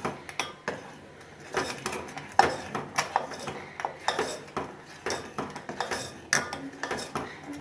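A spoon stirring spiced milk in a pan, clinking and scraping against the pan in repeated, irregular strokes.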